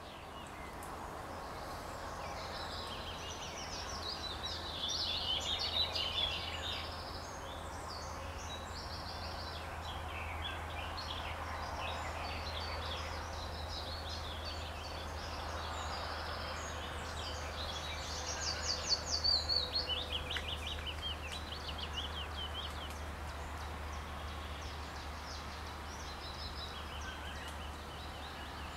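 Wild birds singing and calling in the trees, with quick trills loudest about five and again about nineteen seconds in, over a steady low hum.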